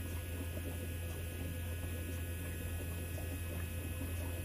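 John Deere tractor's electric fuel priming pump humming steadily as it auto-primes the fuel system, filling freshly changed fuel filters with the bleed screw open.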